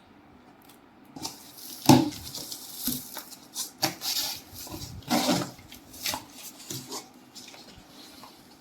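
Cardboard shipping box and packaging being handled and opened: irregular knocks, scrapes and rustles, starting about a second in.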